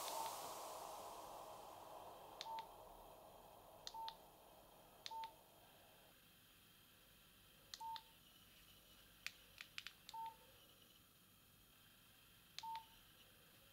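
Nokia 7230 key tones: a button click with a short beep, about six times at uneven gaps of one to three seconds. A few bare key clicks without a beep come near the middle.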